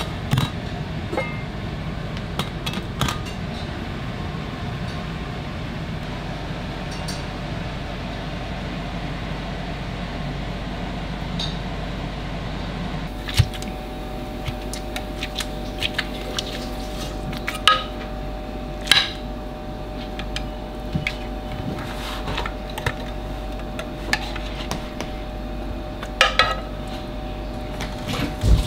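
Scattered sharp clinks and taps of a knife blade and lid against a ceramic terrine dish as a baked pâté is loosened from its sides, over a steady kitchen hum. The clinks come more often in the second half.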